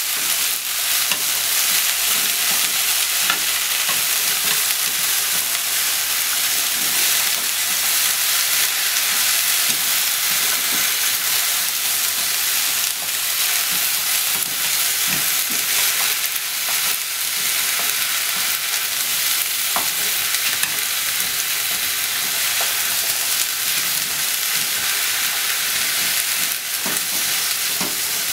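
Cabbage and enoki mushrooms sizzling steadily in a frying pan as they are stir-fried with chopsticks, with a few light clicks along the way.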